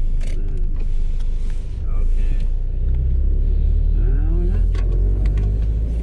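Steady low rumble of a car in motion, heard from inside the cabin, growing heavier about halfway through, with faint talking over it.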